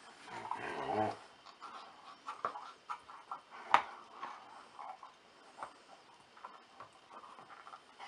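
German shepherd playing with a rubber chew toy on a blanket: a brief vocal sound from the dog about a second in, then chewing, toy squelching and blanket rustling with scattered clicks, one sharp click just before the middle standing out.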